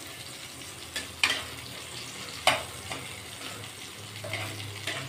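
Sliced onions sizzling in hot oil in a kadhai while a wooden spatula stirs them. The spatula knocks sharply against the pan about three times in the first few seconds.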